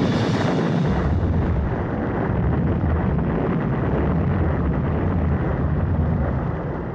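Rocket engine roar: a loud, continuous rumbling roar that holds steady throughout, with the top end brightest at the start and slowly dulling.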